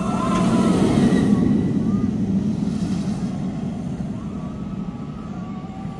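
Fury 325, a Bolliger & Mabillard steel giga coaster, its train rushing past on the track with a low rumble that peaks about a second in and then slowly fades. Riders scream near the start.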